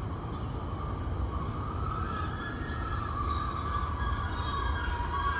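A four-car Class 150 diesel multiple unit running into the station with a steady low rumble. A high squeal sets in about two seconds in and holds as the train slows.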